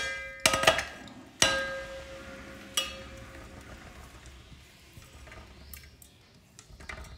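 A plastic chopping board knocked against the rim of an aluminium cooking pot as grated ginger is tipped in: four sharp knocks in the first three seconds, each leaving the pot ringing briefly. After that, fainter brushing and a few small clicks as the last of the ginger is wiped off the board.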